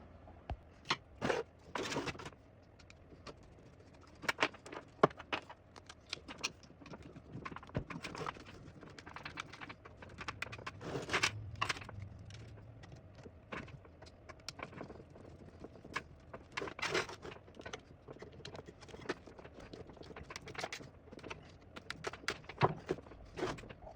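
Irregular clicks, taps and knocks of screws, a screwdriver and 3D-printed plastic foot mounts being handled and screwed onto the underside of a 1931 Royal SX typewriter.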